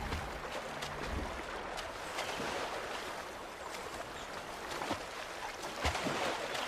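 Rushing, churning river water, an even hiss with a few brief sharp clicks. The last low notes of background music fade out about a second in.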